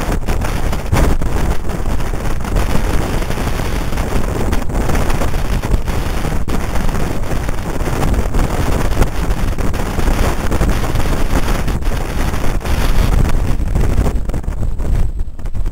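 Strong wind buffeting the microphone on an open ferry deck: a heavy, unsteady low rumble that rises and falls with the gusts.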